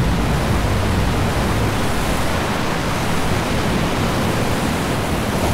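Turbulent muddy whitewater crashing and churning, giving a loud, steady rush of water noise with no break.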